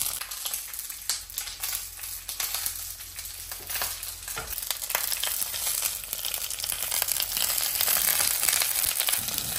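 Masala-coated sardines frying on a banana leaf laid in an oiled pan: a steady sizzle with fine crackling, growing louder in the second half.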